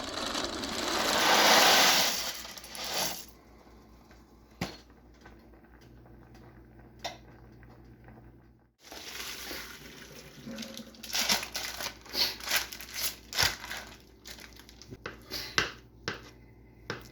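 A broad hiss that swells and fades over the first few seconds, then a run of sharp, irregular clicks and metallic clinks in the second half, like utensils and cookware being handled.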